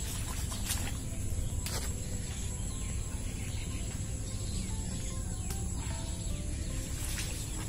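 Steady high-pitched chirring of insects in the vegetable patch, with a few sharp clicks and rustles from the okra plants being handled and picked.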